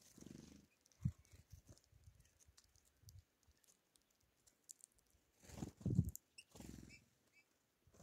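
Small birds at a seed tray, Eurasian bullfinches and great tits, wings fluttering in low thumps as they land and take off, the loudest about six seconds in. Light pecking clicks run through it, with a couple of faint short chirps about seven seconds in.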